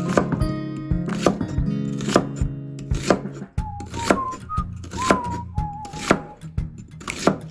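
Knife chopping on a cutting board: a run of sharp knocks, the strongest about once a second, with lighter ones between. Background music plays under it and changes to a whistled melody about halfway through.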